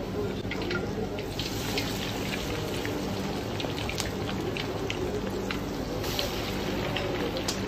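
Coated fish deep-frying in a pot of hot oil: steady sizzling with frequent sharp crackling pops.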